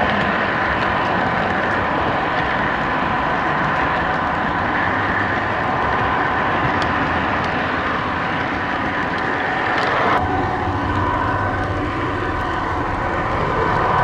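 An O gauge model train running along the track, heard from a camera riding on it: a steady rumble with a constant whine over it. The sound shifts abruptly about ten seconds in.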